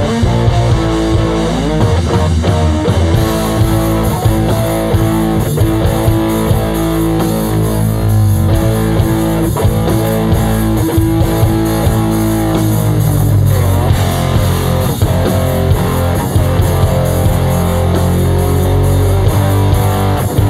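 A rock band playing live: electric guitar and bass guitar over drums. A held guitar note gives way to a heavier, bass-led passage about two-thirds of the way through.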